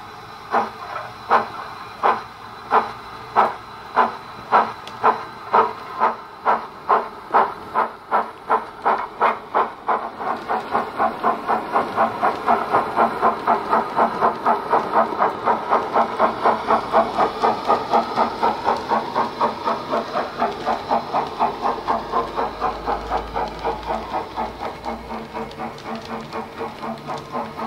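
Bachmann 9F model steam locomotive's 'Wheeltappers' DCC sound decoder playing steam exhaust chuffs through a megabass speaker, over a steady hiss. The chuffs quicken as the engine picks up speed, from about one and a half a second to about three a second in the first ten or so seconds, then hold an even beat and grow a little quieter near the end.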